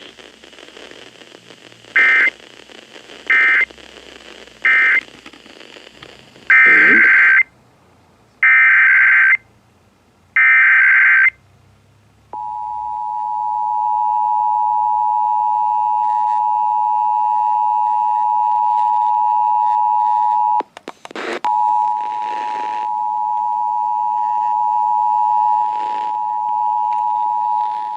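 Emergency Alert System data and attention tones. Faint static is followed by three short, shrill SAME data bursts, the end-of-message code closing one test. Three longer SAME header bursts open the next required monthly test, and then the steady two-tone EAS attention signal holds for about sixteen seconds, breaking up for a moment partway through.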